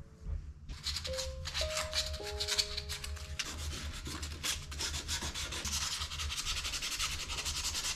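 Hand sanding of primed 3D-printed plastic prop parts with 320-grit sandpaper: rapid back-and-forth rasping strokes that start just under a second in. A few soft background music notes sound under it in the first half.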